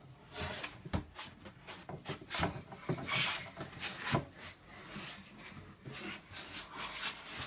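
Irregular knocks, clicks and rubbing of things being handled and moved about, with a longer scraping rustle about three seconds in.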